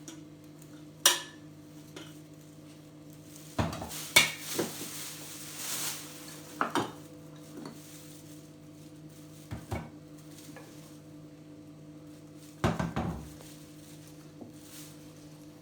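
Aynsley china dishes clinking and knocking against each other as they are lifted out of a box, in a handful of separate clusters with a stretch of rustling about four seconds in. A faint steady hum runs underneath.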